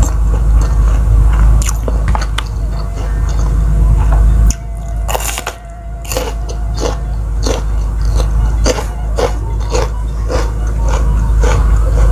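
Close-miked eating: crisp bites and crunchy chewing of raw bitter melon and other raw vegetables, with a strong bite about five seconds in, then rhythmic crunching chews about two a second.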